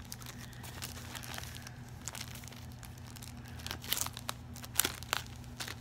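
Plastic bag crinkling as a rolled diamond-painting canvas is handled and pulled out of it: scattered sharp crackles, bunched around the middle and near the end, over a steady low hum.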